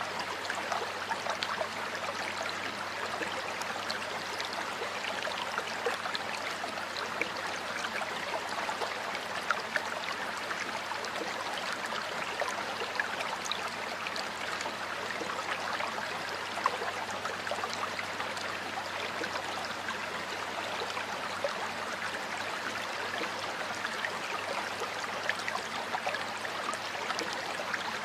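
Stream water flowing and splashing steadily, with many small bright trickling splashes over a continuous rush.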